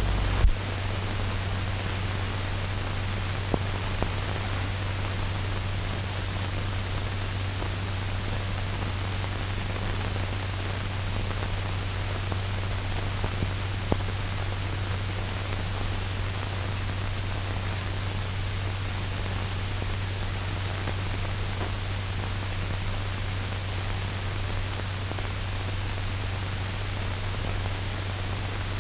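Steady hiss of an old film soundtrack with a constant low hum beneath it and a couple of faint clicks. No music or voice is heard.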